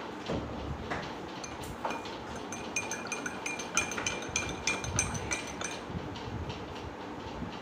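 Metal spoon stirring water in a drinking glass, clinking against the glass sides over and over with a brief glassy ring after each tap. The clinks come thickest in the middle and thin out near the end.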